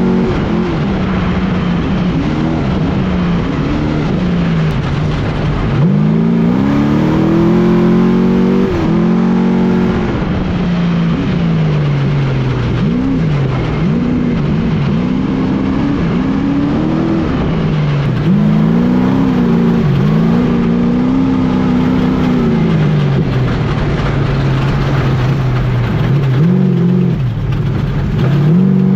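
Trophy truck engine at racing speed, revving up and dropping back again and again as the driver shifts and lifts over the rough dirt road, over a constant rush of tyre, dirt and wind noise. Near the end the truck splashes through water.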